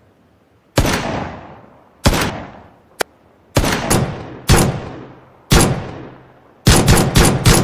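Pistol gunshots, each with a long echoing tail. Single shots come about a second apart, then a quick burst of about five near the end.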